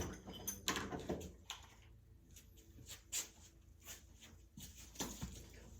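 Faint, scattered knocks and clicks from objects being handled and set down on a workbench, with the sharpest knock about three seconds in.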